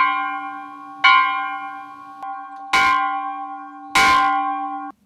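Bronze church bell in a wooden frame, rung by pulling a rope so the clapper swings: four strong strikes about a second apart with a lighter one between, each ringing on with a steady chord of tones. The ringing cuts off suddenly near the end.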